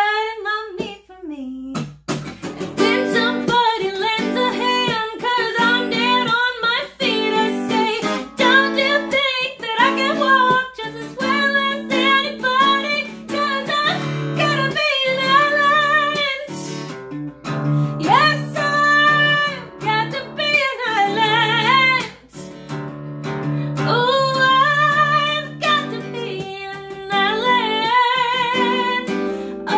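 A woman singing a bluesy soul song with vibrato on held notes, accompanying herself on a strummed acoustic guitar. The playing is quieter for the first couple of seconds, then picks up into full strumming.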